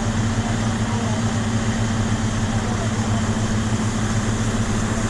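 A steady low mechanical hum, as of an idling engine, over an even hiss that does not change.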